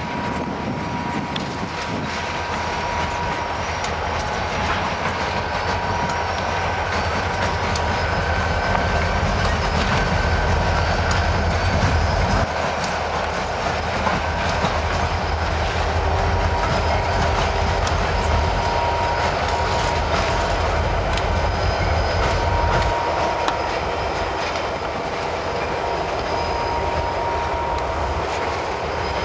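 CSX diesel-electric locomotives rolling slowly past. The engines give a deep rumble that eases about three quarters of the way through, the wheels click over rail joints, and there is a faint steady whine.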